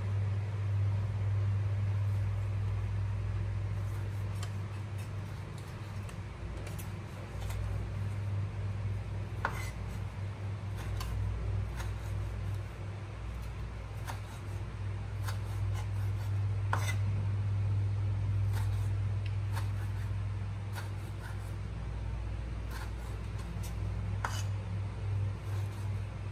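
Chef's knife slicing tomato on a wooden cutting board: irregular sharp taps of the blade on the board, over a steady low hum.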